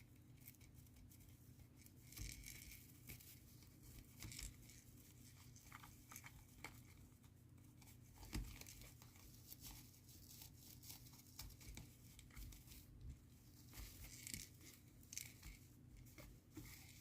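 Christmas tree being scratched: a run of soft, irregular scratches and crackles.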